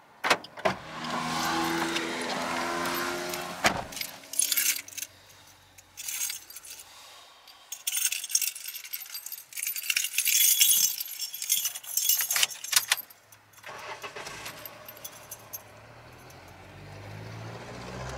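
Street noise: a motor vehicle goes by in the first few seconds, then several seconds of rapid clicking and jangling rattle, and a low engine rumble builds near the end.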